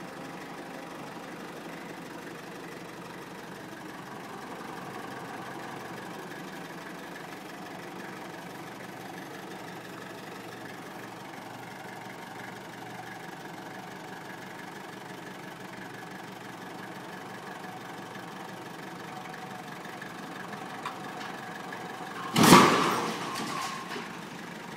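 Kubota tractor's diesel engine running steadily under a pull. Near the end comes one loud crash, dying away over about a second, as the steel winch assembly comes down onto the ground.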